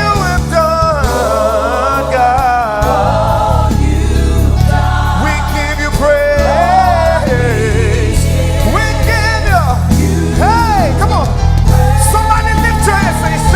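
Live gospel worship music: a choir and lead singers holding and gliding through sung, wordless melodic lines with vibrato over a steady bass and band accompaniment.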